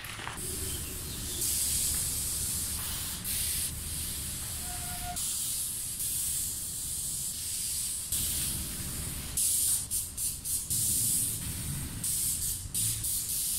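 Aerosol spray paint can spraying onto a concrete wall in bursts: several longer sprays in the first half, then a run of short, quick puffs near the end.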